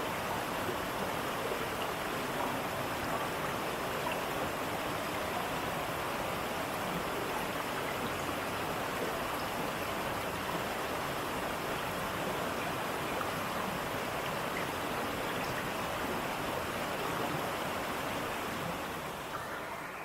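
Waterfall: a steady, even rush of falling water that begins to fade out near the end.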